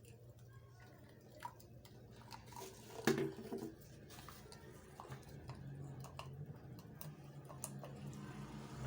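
Thick blended lemon, ginger and garlic juice being strained: quiet wet dripping and squishing with small clicks, and one louder knock about three seconds in. A faint low hum grows in the background from about five seconds in.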